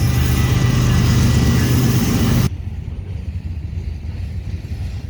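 Diesel locomotive running loud, with a steady low engine drone over rail and wind noise; about halfway through, the sound cuts off abruptly to a much quieter low rumble.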